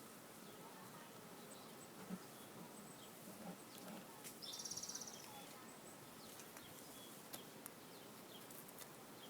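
Faint buzzing of honeybees around the hives, with a few soft clicks and a brief high trill just before halfway.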